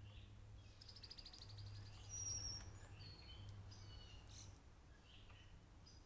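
Faint songbirds calling: a quick trill about a second in, then a short high whistle, the loudest call, and a scatter of chirps. A low steady hum sits underneath.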